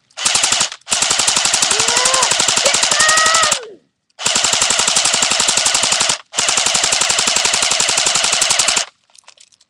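Airsoft AK-47 firing on full auto in four bursts, a short one and then three long ones of two to three seconds each, every burst a rapid, even stream of shots.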